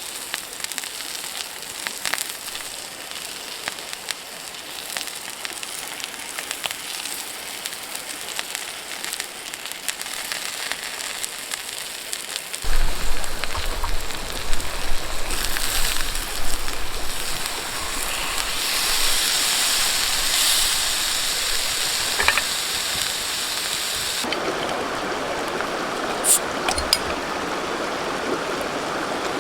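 Outdoor ambience in three parts: a steady hiss with scattered light crackles and a thin, steady high tone; then, about halfway, a low rumble joins under a brighter hiss; and in the last few seconds the even rush of a flowing stream.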